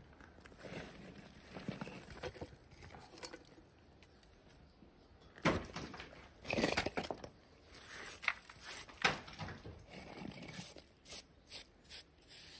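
Irregular crunching, scraping and knocking of broken concrete rubble and grit being handled and stepped on, next to a freshly cast lead ballast keel. The loudest scrapes and knocks come in a cluster around the middle.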